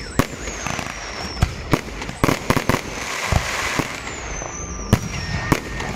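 Fireworks display: aerial shells bursting in a string of sharp bangs, with two falling whistles and a stretch of dense crackling in the middle.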